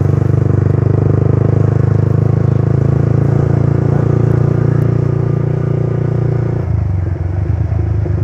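Yamaha R15 V3 motorcycle's single-cylinder engine running steadily while the bike cruises, heard from the rider's seat; about seven seconds in the engine sound drops suddenly as the throttle eases off.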